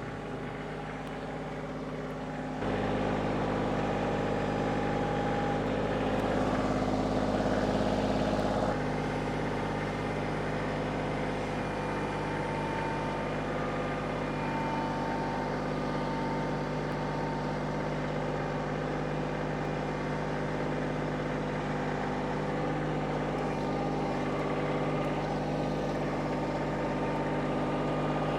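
Kioti CK2610 compact tractor's diesel engine running steadily. It is throttled up about two and a half seconds in, runs a little louder for a few seconds, then settles to a steady higher speed.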